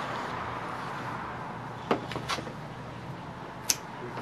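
Pruning shears snipping through Epiphyllum stems: three short sharp clicks, about two seconds in, a moment later, and near the end, over steady background noise.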